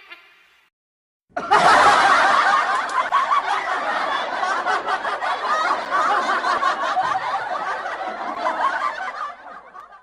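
A laughter sound effect: the tail of one rhythmic laugh fades out, then after a brief silence many voices laugh together for about eight seconds before fading away.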